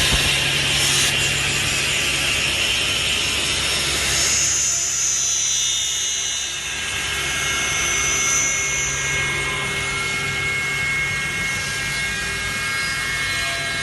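A power woodworking machine running steadily while cutting wood: a constant hum with several steady whining tones over the rasping noise of the cut.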